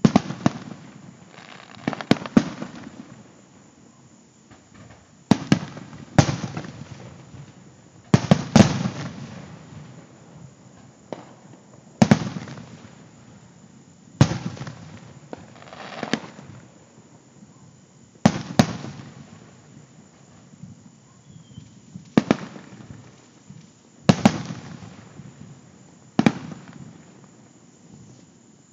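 Aerial firework shells bursting one after another, a sharp bang about every two seconds, sometimes two in quick succession, each followed by an echo that fades away.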